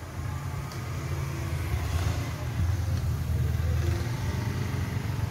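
An engine running steadily, a low, even hum.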